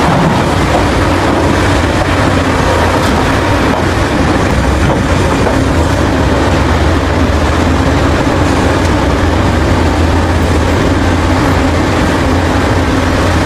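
Caterpillar 6015B hydraulic mining excavator working steadily: a heavy diesel engine running under load with a steady hum, as it dumps dirt into a dump truck and digs again.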